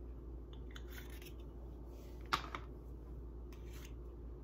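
Short breathy sniffs at a small plastic scent tester held to the nose, with a sharp plastic click a little over two seconds in. A steady low hum runs underneath.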